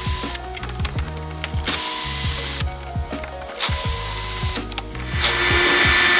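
Bosch cordless drill/driver spinning in several short bursts, backing screws out of an RV door handle.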